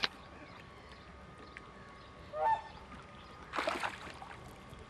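A duck or goose gives one short, nasal honking call about halfway through, over a quiet background. A brief burst of noise follows about a second later.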